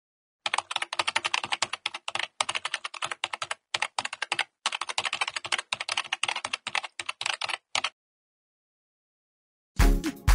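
Rapid typing on a computer keyboard, clicking keys in several quick runs with short pauses, stopping about eight seconds in. Near the end, Afro-house dance music with a heavy kick drum starts abruptly.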